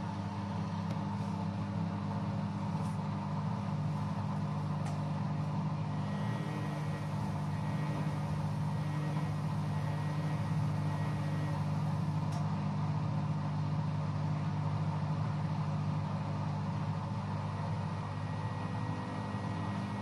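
LG WD-80490S front-loading washing machine running mid-cycle: its drum motor hums steadily as the drum tumbles a wet, soapy load, with a few faint clicks in the first few seconds.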